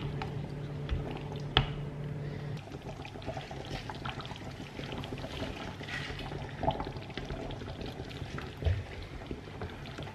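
A plastic slotted spoon stirring chunks of meat in a pot of thick coconut-milk rendang sauce: the liquid sloshes, with small taps of the spoon against the pot.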